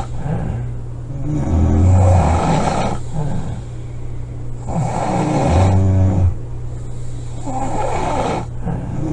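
A woman snoring loudly: two deep, rattling snores about four seconds apart, with breathy airflow between them.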